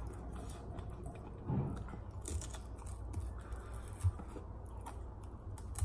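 A person biting and chewing a chicken wing: faint chewing with small clicks, one sharper click about four seconds in, over a low steady room hum.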